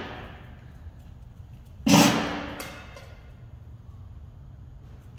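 A loud, sharp bang about two seconds in that echoes away over about a second, with a fainter knock just after it.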